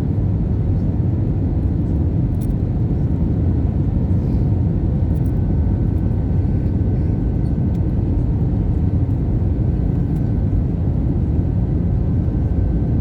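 Steady low rumble of engine and airflow noise inside the cabin of an Airbus A320 airliner, with a faint steady whine above it.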